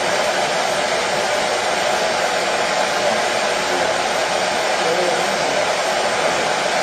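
Electric hair dryer running steadily: an even, unbroken rush of fan and motor noise with no change in pitch or loudness.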